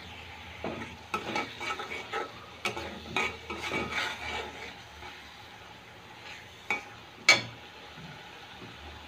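Spatula stirring and scraping a paste frying in a metal kadai, a quick run of scraping strokes over the first few seconds, over a steady low sizzle. Near the end come two sharp knocks of utensil on pan, the second the loudest.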